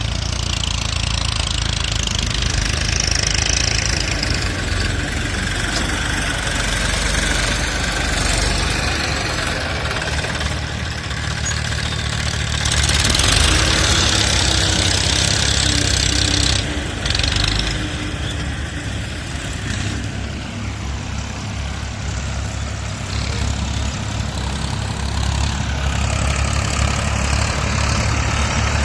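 An engine running steadily, with a louder rushing noise for a few seconds in the middle.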